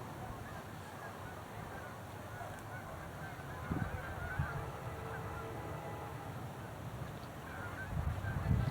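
A flock of geese honking in short, irregular calls, with a low rumble building near the end.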